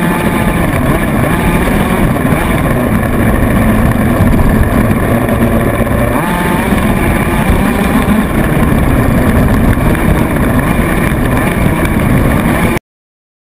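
Radio-controlled off-road buggy heard from a camera mounted on it: its motor running hard under a loud, rough rattle of chassis and tyres over the dirt track. The sound cuts off abruptly near the end.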